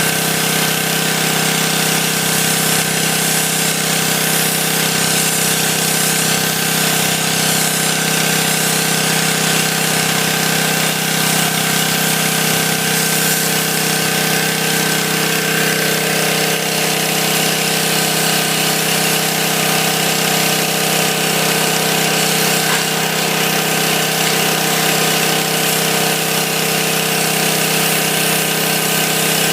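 Pressure washer running steadily while its sandblasting attachment blasts a wet sand-and-water spray, a constant motor-and-pump drone under a loud hiss.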